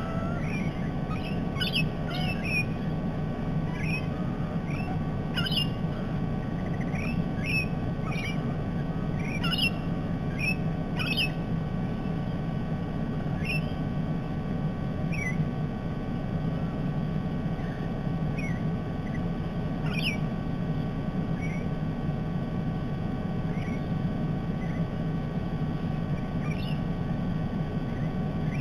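Parrots giving short, high chirping calls at irregular intervals, most often in the first dozen seconds and sparser after, over a steady low rumble.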